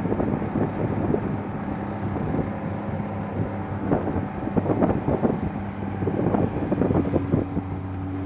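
Speedboat engine running steadily under way, a constant drone, with wind buffeting the microphone in irregular gusts.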